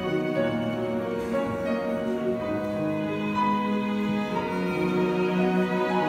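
Live instrumental Christmas music led by violin, with slow held notes over other instruments.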